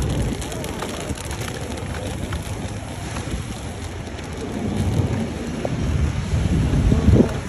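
Wind buffeting the microphone over city street noise: a dense, shifting low rumble that swells near the end.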